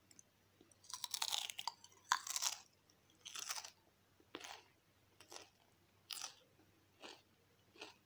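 Crunchy potato chips being bitten into, with two loud crackling crunches about one and two seconds in. They are then chewed with open-mouthed crunches about once a second that gradually get softer.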